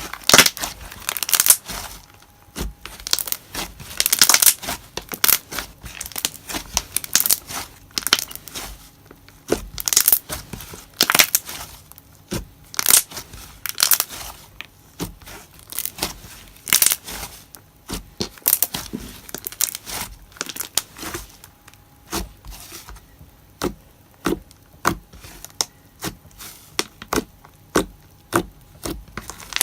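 Glossy slime (SlimeOG's 'Roasted Marshmallow') being squished and stretched by hand, giving off rapid crackling bubble pops. The pops come in thick clusters at first and turn into sparser, single sharp clicks in the second half.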